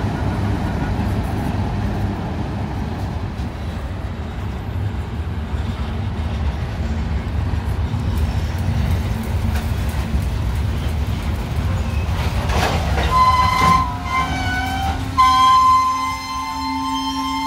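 Diesel train engine rumbling low and steady, then a locomotive air horn sounds a chord of several notes about thirteen seconds in: a short blast, then a louder, longer one.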